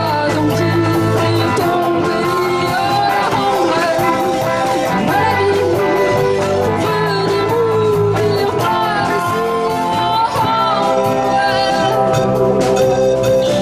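Live rock band playing, with bass guitar, electric guitars and a drum kit, and a woman singing lead into a microphone.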